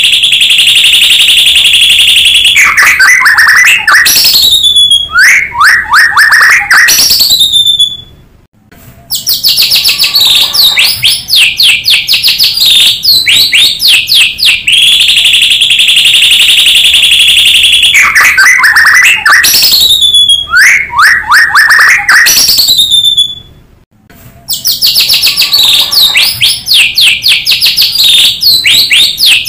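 White-rumped shama (murai batu) song played as a lure track: loud high trills alternating with quick downward-sweeping whistles. The same sequence repeats about every 15 seconds, with a brief pause about 8 seconds in and again about 24 seconds in.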